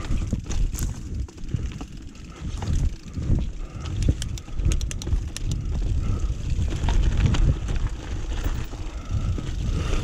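Mountain bike rolling fast down a rough dirt trail, with a heavy rumble of wind on the helmet-mounted microphone and scattered clicks and rattles from the bike over the ground, thickest about four to five seconds in.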